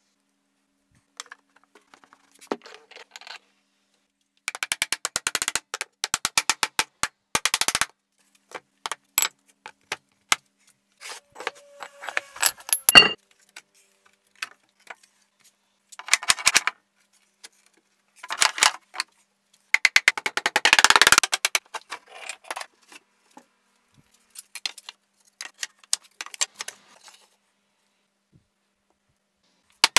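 Repeated bouts of rapid clattering and knocking as pine planks are handled on a workbench and cast-iron weight plates are set on them, with one sharp clank about halfway through.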